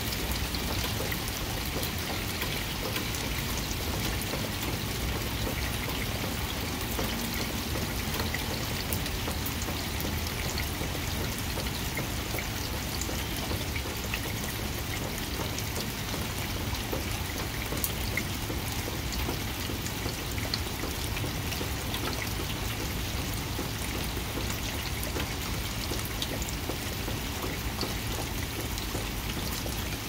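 Steady rain falling on garden plants and a wet paved path, an even hiss with scattered sharp drop ticks.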